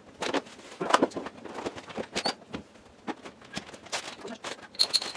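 Kitchen handling noise: a string of irregular small clicks and knocks, with a short high squeak about two seconds in and again near the end.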